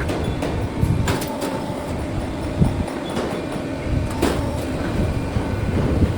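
Automatic sheet-metal duct production line running: a steady low machine rumble with irregular sharp metallic knocks.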